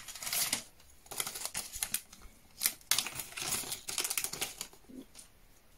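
Small tools and parts being handled on a workbench: irregular runs of light clicks and rattles that die away about a second before the end.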